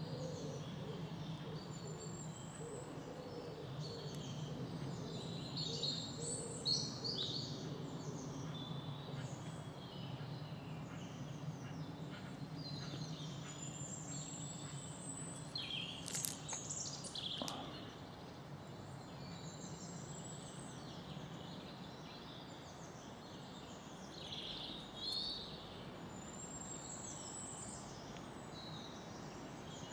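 Small garden birds chirping and singing, many short calls and quick glides scattered throughout, busiest about halfway through, over a steady low background hum.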